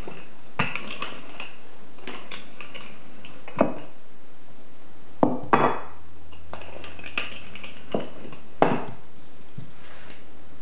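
Scattered sharp knocks and light clatter of a wooden rolling pin and dough being handled on a kitchen countertop, with a quick cluster of hits about halfway through.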